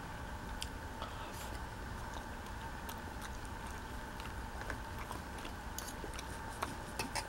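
Knife and fork cutting a fried apple-and-raisin pastry on a paper plate: small scattered clicks and scrapes of the cutlery, with soft chewing, over a steady low hum.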